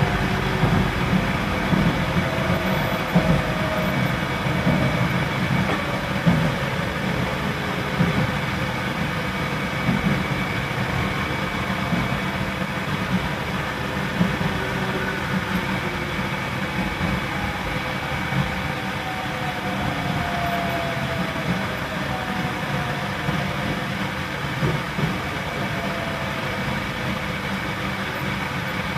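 Cabin running sound of a JR Central 313 series electric train: a steady rumble of wheels on rail with loud air conditioning. A faint traction-motor whine falls in pitch as the train slows.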